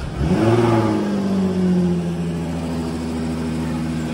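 Jaguar F-Type engine firing up with a sharp rev flare in the first half-second, then settling into a steady idle.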